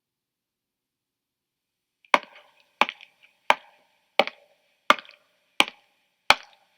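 A library sound effect of one man walking: after about two seconds of silence, footsteps start and come at an even pace, seven sharp steps about 0.7 s apart.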